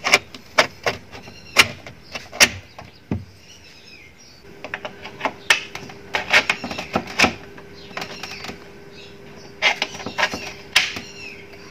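Sharp metallic clicks and taps as steel hinge pins are slid into the hinges joining the bed panels and knocked home, coming in clusters with short pauses between them.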